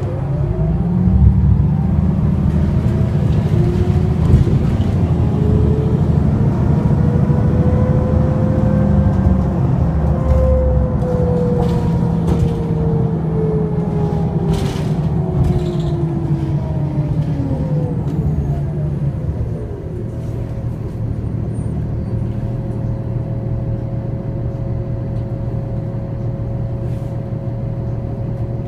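New Flyer DE60LFR diesel-electric hybrid articulated bus driving, heard from inside the passenger cabin: a heavy engine rumble with a thin whine that rises in pitch as the bus speeds up over the first ten seconds and falls as it slows. After about twenty seconds the rumble drops to a quieter steady run.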